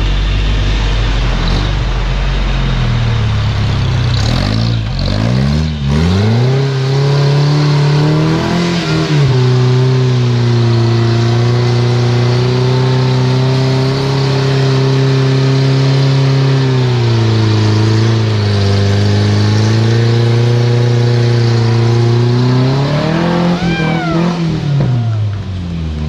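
Toyota rock buggy's engine revving hard: the revs climb over the first several seconds and are then held high and steady at full throttle, dipping briefly about two-thirds of the way through before dropping away near the end.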